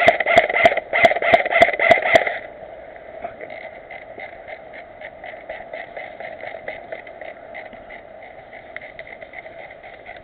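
Airsoft guns firing: a loud string of about seven sharp shots in the first two seconds or so, then fainter shots ticking on at about three to four a second.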